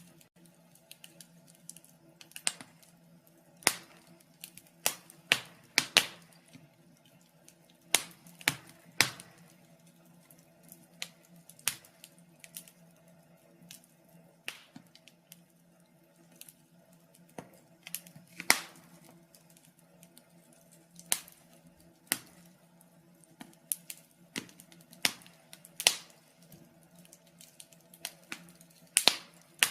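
Wood fire crackling: irregular sharp pops and snaps, a few every couple of seconds, over a faint steady low hum.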